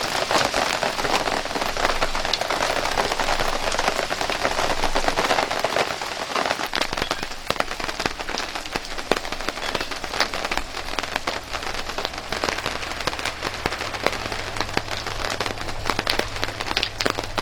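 Rain pattering, a dense hiss full of small ticks, louder in the first six seconds; a low steady hum comes in about halfway through.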